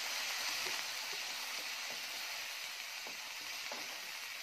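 Onion-tomato masala sizzling in a nonstick pan just after a splash of water was added, a steady hiss that slowly fades, with a few soft strokes of a wooden spatula stirring it.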